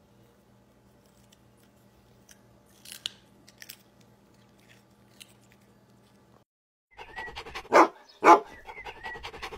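A small dog chewing a carrot: a few faint crunches over quiet room hum. Then the sound cuts, and a loud end-card sting follows with two bark-like hits about half a second apart.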